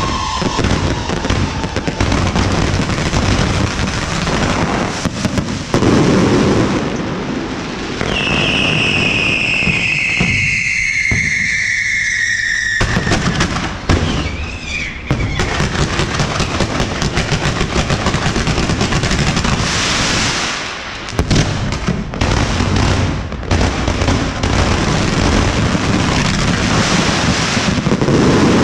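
Fireworks going off, a dense run of crackles and bangs. A whistling firework sounds about eight seconds in, falling in pitch for several seconds.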